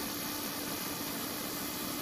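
Steady hissing hum of a small motor running, driving a radio-controlled model ferry boat.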